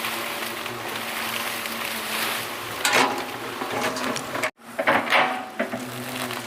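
Excavator's diesel engine running steadily, with louder knocks or scrapes about three seconds and five seconds in, and the sound cutting out for an instant between them.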